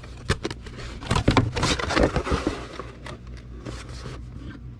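Rustling, scraping and light knocks of packing materials being handled, busiest in the middle and thinning out towards the end.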